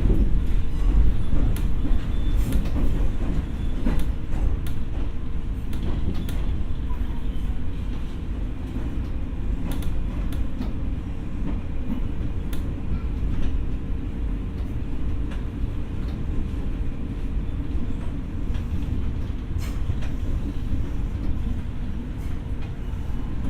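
Tokyo Metro 6000 series electric train heard from inside the carriage, its rumble and wheel clicks dying down over the first several seconds as it slows into the station. It then settles to a steady hum with a thin constant tone from its onboard equipment.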